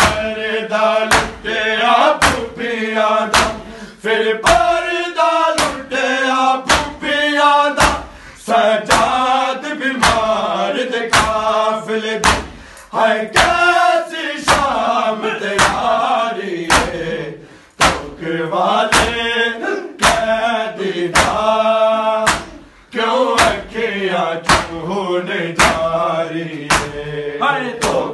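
Men's voices chanting a Punjabi noha (Shia lament) together, over sharp hand slaps on bare chests (matam) struck in a steady beat, roughly two a second.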